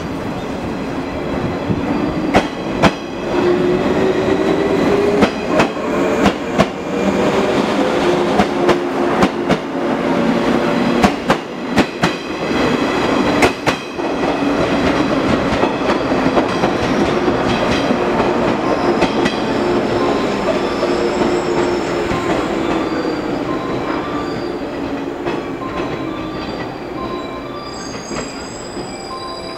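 JR West 115 series electric train pulling out. The traction motors whine, rising in pitch as it gathers speed, while the wheels click over the rail joints as the cars pass. The sound then fades slowly as the train draws away.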